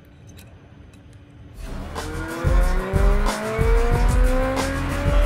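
A race car engine sound comes in about a second and a half in and climbs steadily in pitch as it accelerates. It plays over music with a heavy beat.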